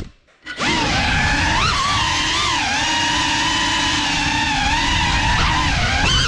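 Whine of a GEPRC Cinelog 35 FPV cinewhoop's brushless motors and ducted propellers, its pitch rising and falling with the throttle. The motors cut out for about half a second near the start, then spin back up.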